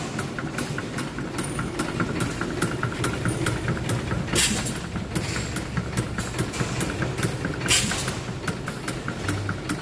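Vertical single-cylinder stationary gas engine running, its flywheels turning, with a quick steady clicking from the engine and two louder bursts about three seconds apart.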